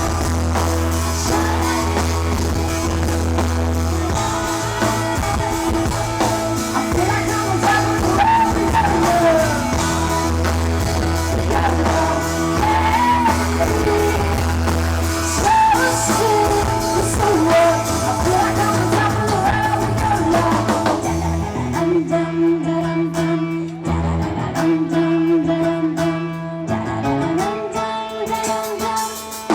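Pop song performed live: a female singer's vocal over a backing of guitar, bass and drums. The voice drops out about two-thirds of the way through, leaving mostly the instruments.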